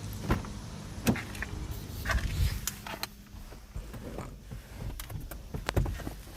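Scattered clicks and knocks of objects being handled, at irregular intervals, over a low steady hum that fades out about halfway through.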